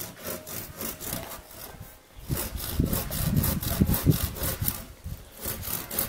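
Handsaw cutting through a branch of a felled sweet cherry tree in quick, even back-and-forth strokes, heaviest and loudest in the middle stretch.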